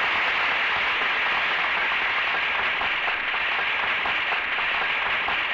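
Studio audience applauding steadily, a dense clatter of many hands, heard through an old radio broadcast recording.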